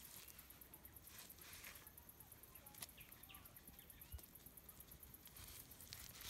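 Near silence: faint outdoor ambience with a few brief, soft bird chirps scattered through and a couple of faint clicks.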